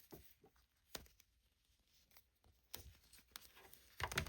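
Faint, scattered clicks and rubbing of a toy figure being handled as its legs are turned, with a few soft knocks near the end.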